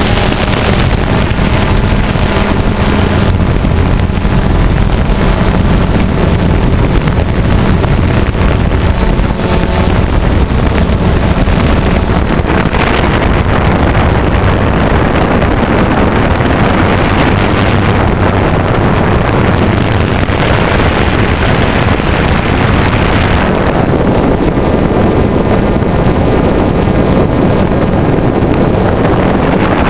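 Motors and propellers of a remote-controlled hovering drone, heard from the craft itself: a loud, steady whir whose tone shifts a few times, with wind buffeting the microphone.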